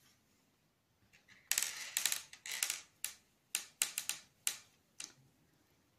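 Light, sharp clicks and rustles of crystal beads and a steel crochet hook being handled, as a bead is taken up and worked onto the thread. They start about a second and a half in and come in an irregular run of a dozen or so small ticks over three or four seconds.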